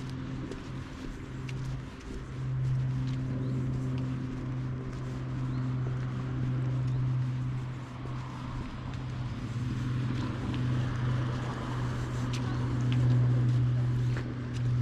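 A steady low mechanical hum, with a few scattered light clicks of footsteps.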